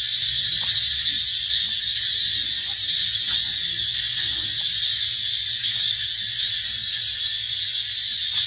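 Steady, high-pitched drone of a chorus of insects with a faint shimmer, with a weak low rumble beneath.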